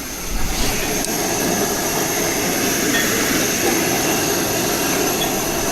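Commercial gas stove burner running with a steady roar under the pot of congee.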